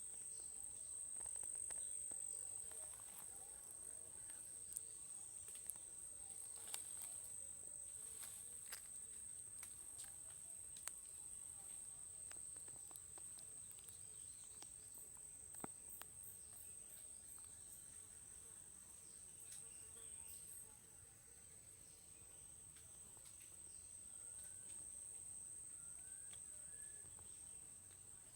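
Insects trilling in one steady, high-pitched note, with scattered faint clicks and a couple of faint short rising chirps near the end.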